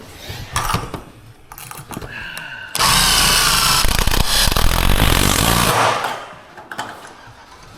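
A handheld power tool runs in one burst of about three seconds, starting suddenly a little under three seconds in and dying away near six seconds. Before it come a few light knocks and clanks of handling.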